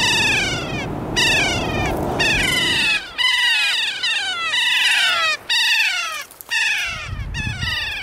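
Kea calling: a run of shrill screeches that each slide down in pitch, about two a second. A low rumble lies under the first three seconds and returns near the end.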